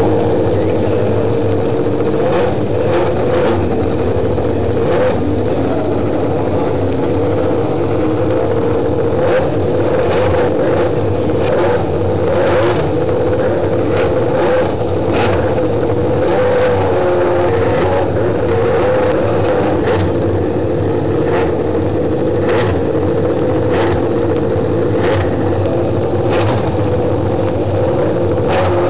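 Ducati Desmosedici MotoGP race-bike engine running at a steady idle, with sharp cracks now and then.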